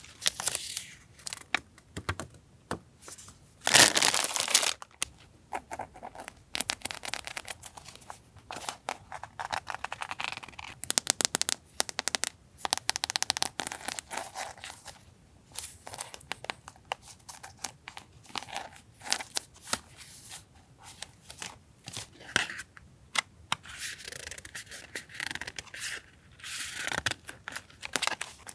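Irregular rustling and crinkling of paper and packaging being handled, with short taps, scrapes and tearing-like swishes; the loudest rustle comes about four seconds in.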